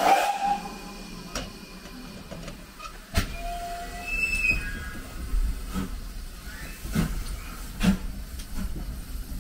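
Great Western tank steam locomotive pulling away: a loud burst of steam at the start, then a low rumble with a few slow, uneven exhaust beats and a brief high squeal from the wheels.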